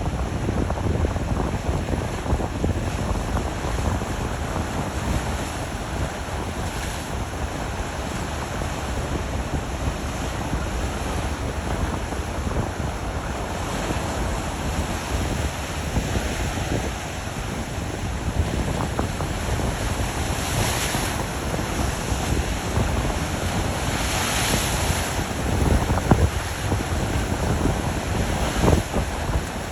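Atlantic Ocean waves breaking against volcanic rocks: a continuous heavy rush of surf, with louder crashes and hissing spray about two-thirds of the way through and again near the end.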